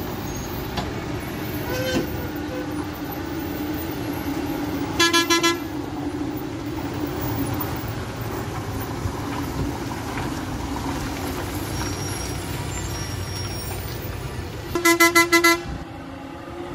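Heavy goods lorry's engine running steadily as it rounds a hairpin bend. Its horn sounds in a quick string of short toots about five seconds in, and again near the end.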